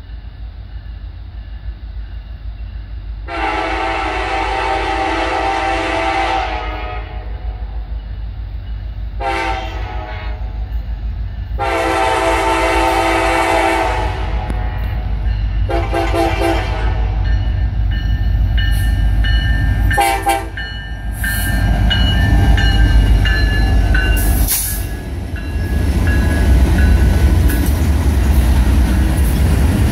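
Norfolk Southern diesel freight locomotive's air horn sounding a series of blasts: long, short, long, short, then a brief toot about twenty seconds in. The horn is followed by the low running of the lead diesel locomotives and their wheels on the rails as they pass close by, growing louder toward the end.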